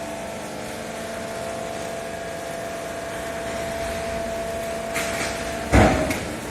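Vertical baler's hydraulic power unit running with a steady hum and a held tone, then a loud clank about six seconds in as the machine moves.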